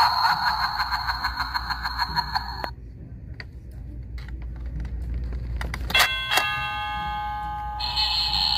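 Battery-operated Halloween doorbell props sounding off through their small speakers when their 'Try Me' buttons are pressed. An electronic sound effect pulses and cuts off suddenly about two and a half seconds in. About six seconds in a button click sets off an electronic doorbell chime, and another effect follows near the end.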